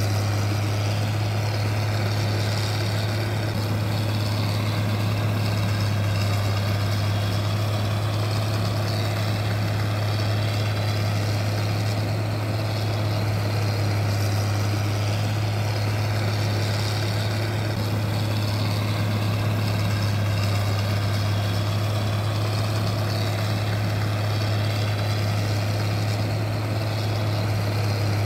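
Steady, unchanging low machine hum with one strong low tone.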